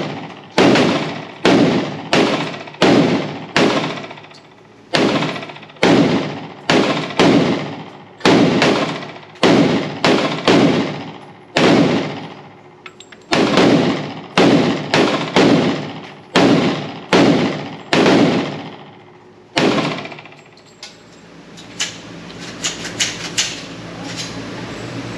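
FN FNX-45 Tactical .45 ACP pistol firing a long string of about two dozen shots, roughly one every two-thirds of a second with a couple of brief pauses, each shot echoing. The shooting stops about 20 seconds in, leaving a few faint metallic clicks.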